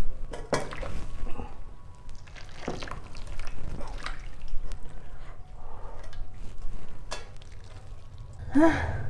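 Hot water poured from an electric kettle into an enamel basin of water, with a few sharp knocks as the kettle and basin are handled.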